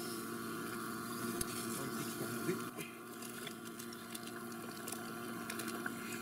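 Pot of broth heating on a gas stove, coming up to the boil: a steady burner hiss with the water starting to bubble, and a few light clicks about halfway through.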